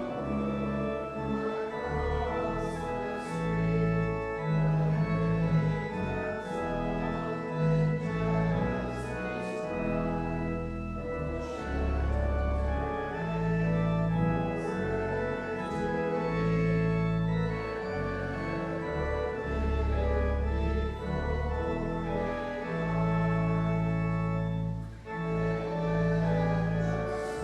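Church organ playing a hymn, with sustained chords over deep bass notes that change every second or two.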